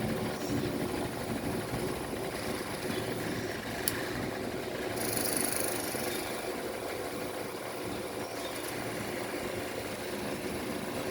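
A steady background engine-like running sound, with a single sharp click about four seconds in and a brief hiss a second later.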